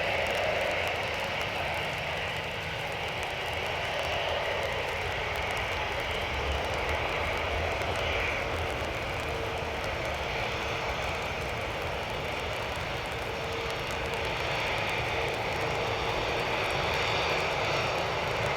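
Jet engine noise from an Airbus A330 airliner coming in to land: a steady broad rush with a faint steady tone, swelling slightly near the end.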